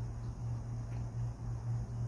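Steady low hum of background noise, with a couple of faint ticks.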